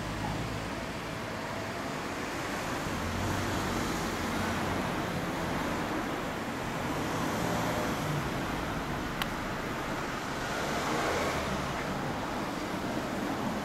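Low, steady engine rumble under an even haze of outdoor noise, with one sharp click about nine seconds in.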